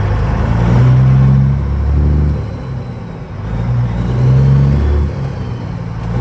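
Peterbilt glider semi truck's freshly overhauled diesel engine running under way, its low note rising and falling with the throttle. It eases off about halfway through, then pulls again.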